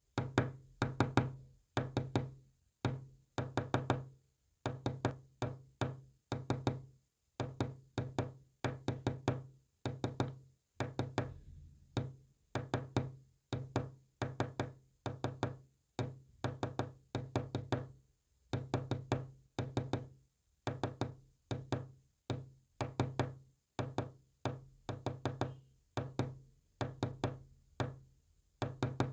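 Quick knocks in groups of two to six, with short gaps between the groups, tapping out Morse code. The pattern runs on without a break.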